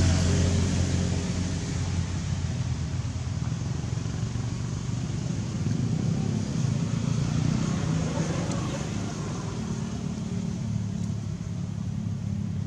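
An engine running steadily, a low hum with a few steady tones.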